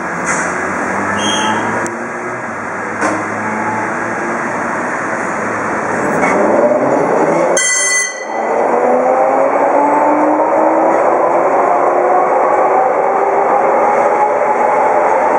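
Electric rack-railway car pulling away and climbing: a whine from its motors and cog gearing that rises steadily in pitch. It grows louder about six seconds in and dips briefly near eight seconds.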